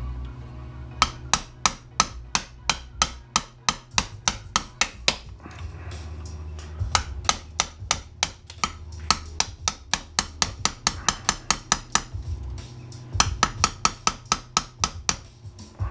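Hammer striking a chisel to cut across the copper winding inside an AC adapter, quick sharp blows about three to four a second in three runs broken by short pauses.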